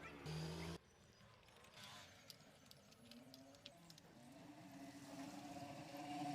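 Mostly faint workshop sounds: a short low hum in the first second, a few light clicks, then a motor engine's running sound growing louder over the last few seconds.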